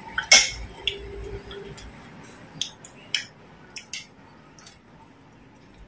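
Spoons and chopsticks clinking against ceramic bowls and plates while people eat: a sharp clink about a third of a second in, then half a dozen lighter clicks spread over the next few seconds.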